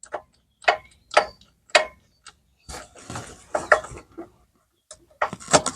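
Sharp metallic clicks and rattling of a spark plug socket and extension, with a short stretch of scraping, as a spark plug is started into the lawn tractor engine's cylinder head by hand.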